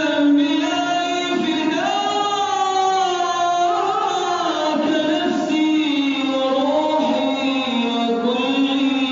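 Arabic madih, a man singing praise of the Prophet in long, melismatic held notes that slide between pitches.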